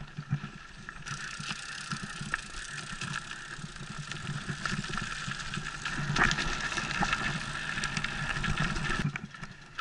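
Mountain bike rolling fast down a rocky dirt trail: tyre noise on dirt and gravel with many quick rattles and knocks from the bike over the bumps. A steady high buzz sets in about a second in and stops shortly before the end.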